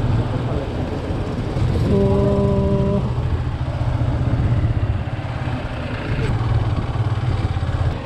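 Motorcycle engine running at low riding speed, heard from on board as a steady low rumble. A steady one-second tone sounds about two seconds in.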